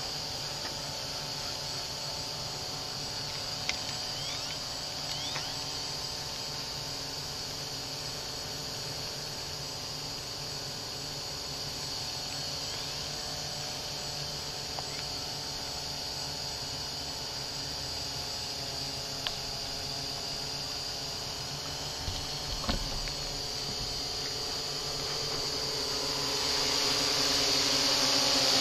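XAircraft X650 quadcopter hovering, its motors and propellers making a steady hum with a high whine. The hum grows louder over the last few seconds as the drone comes closer.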